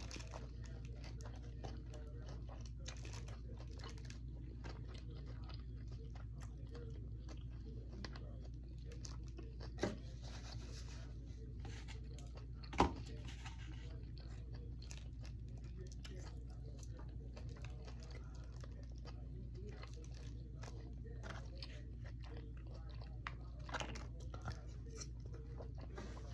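Close-up chewing and crunching of food in the mouth, many small wet clicks, over a steady low hum. Two sharper knocks come about ten and thirteen seconds in.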